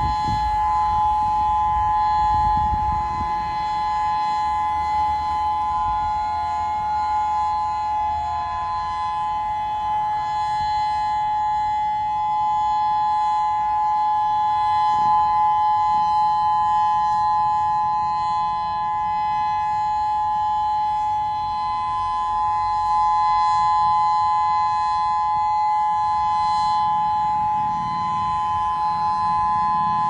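Federal Signal Modulator 2008 electronic outdoor warning siren sounding its steady Alert signal: two close tones held without rising or falling. It is a routine siren test, not a real warning.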